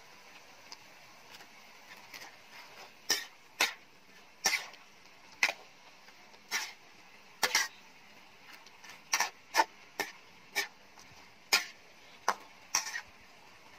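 Metal spatula scraping and knocking against a metal wok while stir-frying bean sprouts with pork and chives: short sharp strokes at about one a second, starting about three seconds in.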